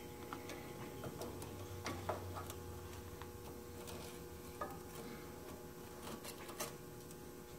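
Scattered light clicks and knocks of an oil filter wrench and hands working at a tight, hard-to-turn oil filter under the car, the sharpest about two seconds in, over a steady faint hum.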